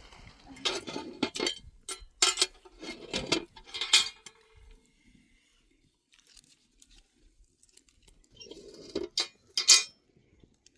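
Kitchenware clattering and clinking: several short bursts of knocks, a pause of a few seconds, then another burst near the end.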